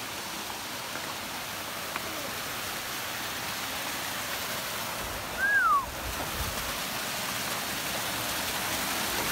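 Steady rush of a waterfall, with a short falling whistle about halfway through.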